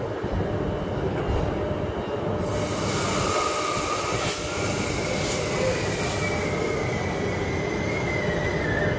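Queensland Rail ICE electric train rolling slowly over curved track with a low rumble. About two and a half seconds in, a high wheel squeal with a hiss sets in and holds, its pitch sinking slightly near the end.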